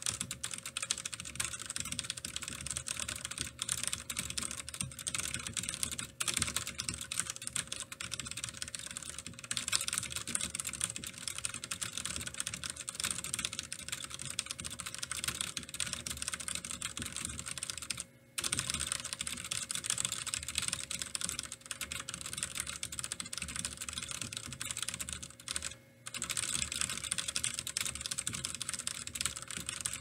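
Fast touch-typing on a Das Keyboard mechanical keyboard with tactile Cherry MX Brown switches: a dense, continuous clatter of keystrokes, broken by two brief pauses past the middle.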